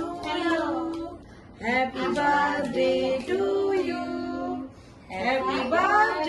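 Women and a child singing a birthday song together during the cake cutting, in held notes with two short breaks between phrases.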